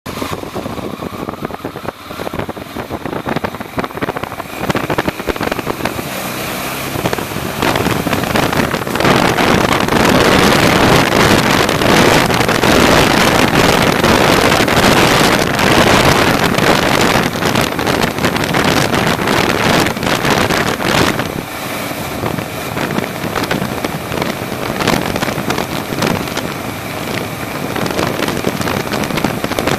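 Motorcycle running at riding speed with wind noise on the microphone. The noise swells louder about eight seconds in and eases again a little past the twenty-second mark.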